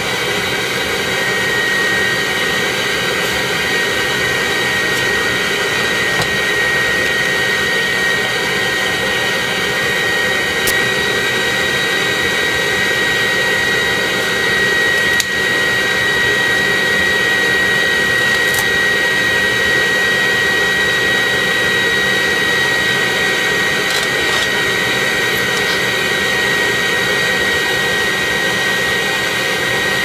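Bee vacuum running steadily, a loud rush of suction with a high steady whine, as its hose and PVC nozzle suck bees off exposed honeycomb. The level dips briefly about halfway through.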